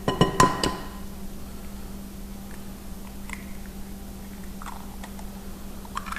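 Eggs being cracked against the rim of a glass mixing bowl: several sharp clinks with a short glassy ring in the first second, then a few faint clicks. A steady low hum runs underneath.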